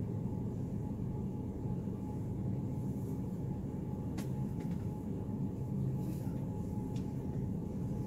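Steady low rumble of a big store's background noise, with a faint steady hum over it and a couple of faint clicks, about four and seven seconds in.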